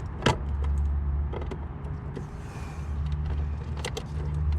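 Small clicks and taps of a Phillips screwdriver loosening the sensor-terminal screws on an irrigation controller, with a sharp click about a quarter second in, over a low hum that comes and goes.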